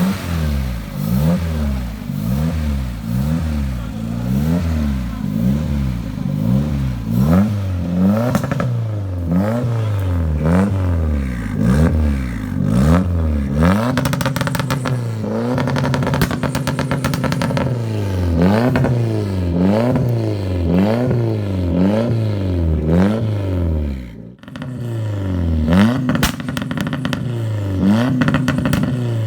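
Turbocharged 1NZ-FE four-cylinder engine in a Lada being revved up and down over and over, the pitch climbing and falling roughly every second or two, with a short break about three quarters of the way through before it picks up again.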